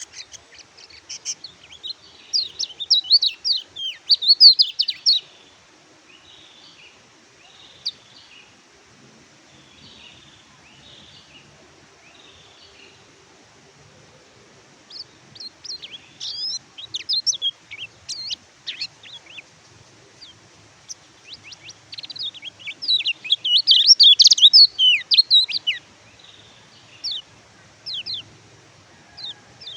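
Kecial kuning, the yellow white-eye (pleci), singing in three main bursts of rapid, high twittering chirps, with softer notes and short pauses between them.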